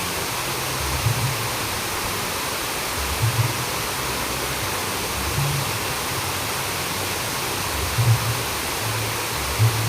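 Steady rushing of flowing water, like a river or weir, with soft low thuds a few times.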